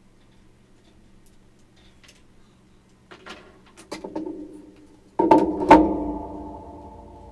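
Handling knocks as parts are taken out: a few clicks and rustles, then a loud knock about five seconds in, a second hit just after, and a ringing tone that fades over about two seconds.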